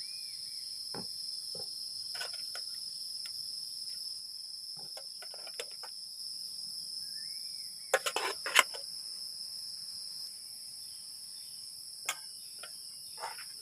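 Steady high-pitched chorus of crickets or similar insects, with scattered light clicks and knocks and a short burst of louder knocks about eight seconds in.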